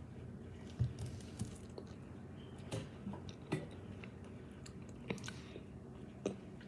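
Close-up mouth sounds of eating half-frozen ice cream squeezed from a soft plastic tube: scattered short, wet clicks and smacks of sucking and chewing, about half a dozen of them.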